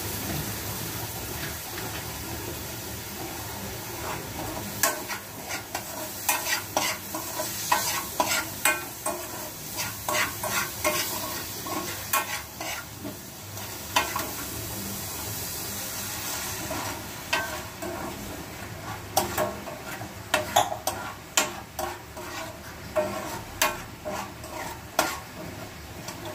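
Chutney mixture sizzling in a hot pan as a spoon stirs it, with a steady frying hiss. From about five seconds in, the spoon scrapes and taps against the pan many times.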